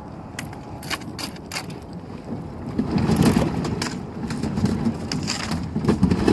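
Thin river ice cracking and crunching as a plastic kayak pushes through it: a run of sharp cracks in the first two seconds, then heavier, denser crunching from about three seconds in.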